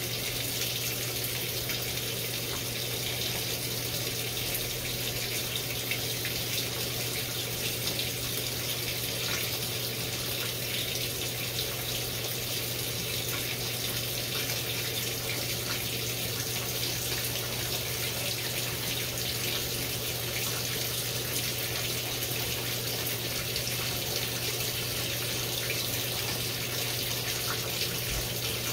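GE GTW720BSN0WS top-load washing machine running mid-cycle: a steady rush of water over a constant low hum, unchanging throughout.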